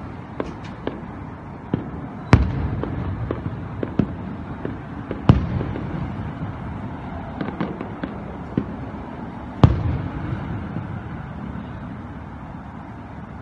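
Fireworks going off: a scattering of sharp bangs and smaller pops, the three loudest about two, five and nine and a half seconds in, over a lingering low rumble that fades toward the end.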